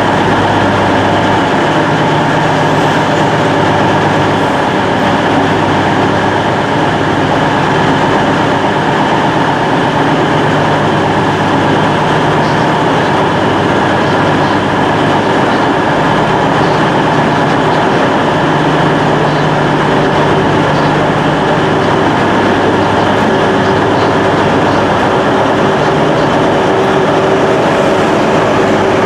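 High Speed Train's Class 43 diesel power cars running as the train creeps slowly along the platform: a steady, loud engine drone with a constant hum. The rear power car's engine grows a little louder near the end as it draws alongside.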